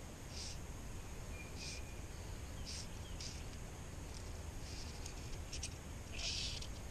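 Fly line being stripped in by hand through the rod guides while bringing in a hooked fish: short, irregular hissing zips, the longest and loudest about six seconds in, over a steady low rumble.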